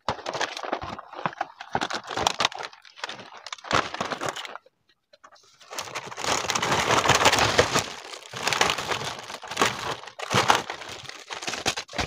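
Plastic toy packaging rustling and crinkling as packets are handled and pulled from a shelf. There is a short pause a little before halfway, then a louder, longer stretch of crinkling.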